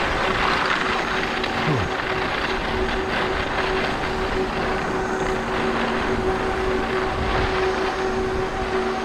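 Steady rushing wind noise on the microphone while skiing downhill, mixed with the hiss of skis sliding over snow, over a faint steady hum. About two seconds in, a brief low tone drops in pitch.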